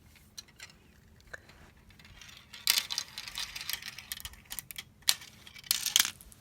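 Marbles rolling and clattering down a toy marble run: scattered light clicks, a busier run of clacks about three seconds in, and a few sharp knocks near the end.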